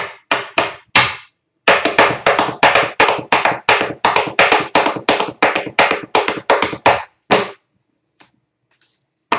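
Sharp percussive strikes: four quick ones, a short pause, then a steady run of about four a second for some five seconds, stopping abruptly.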